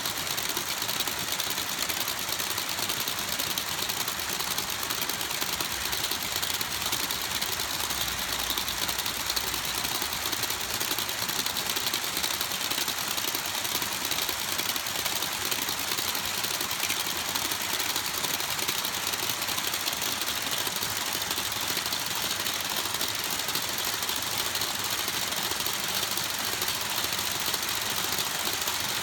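HO scale covered hopper cars of a long model freight train rolling past on the track, their wheels making a steady, dense rattle.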